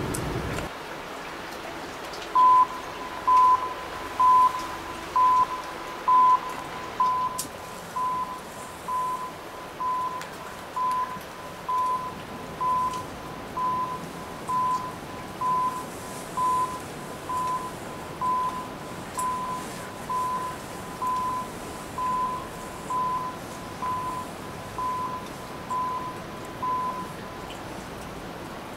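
Electronic warning signal at the railway, a short single-pitched beep repeating about once a second, about two dozen times, loud at first and then fainter.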